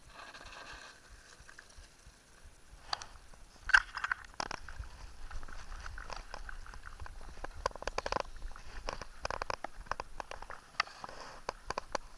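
Mountain bike on a gravel track: irregular crunching and clicking of loose stones under the tyres, with small rattles. It starts about three seconds in, with one sharp knock near four seconds.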